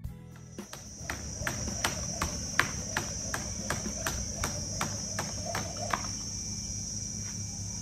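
Skipping rope slapping the floor mat on each turn, an even beat of about three skips a second, stopping about six seconds in at the last skip of a 3,000-skip set. Insects drone steadily at a high pitch throughout.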